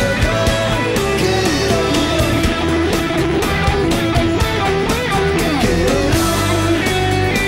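Background rock music led by guitar, with a steady bass underneath and bending guitar notes.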